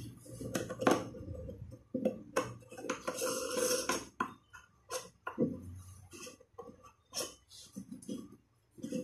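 Irregular knocks and clinks of hands and plastic fittings against a glazed toilet cistern tank as it is handled and turned, with a longer stretch of scraping about three seconds in.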